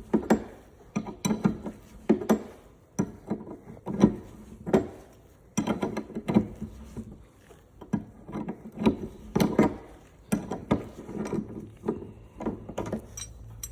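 Wrench work on the 22 mm nut of a rear wiper motor shaft: a run of short, irregular metallic clicks and knocks as the nut is loosened and taken off.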